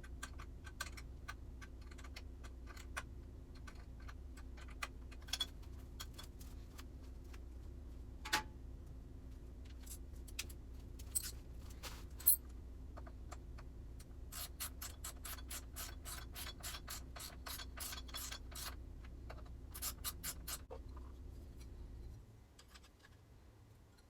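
Wrench work on the 8 mm bolts of a motorcycle fender eliminator bracket: scattered metal clicks and knocks, then a long run of quick ratcheting clicks, about five a second, and a shorter burst a little later. Under it runs a steady low hum that cuts off suddenly near the end.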